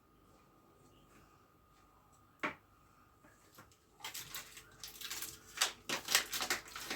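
Small handling sounds of sushi-making at a kitchen table: one short tap, then from about four seconds in a quick run of small clicks, taps and rustles.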